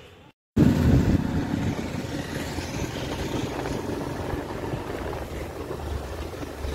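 Wind buffeting the microphone over a running motorcycle on the move: a steady rushing noise with a low rumble, starting abruptly about half a second in.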